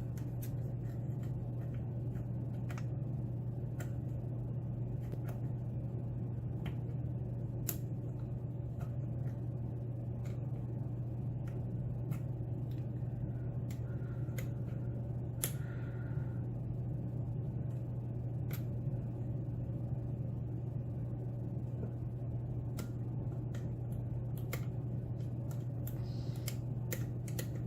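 Faint, irregular clicks of a lock pick working the pins inside a pin-tumbler challenge lock, with a steady low hum underneath.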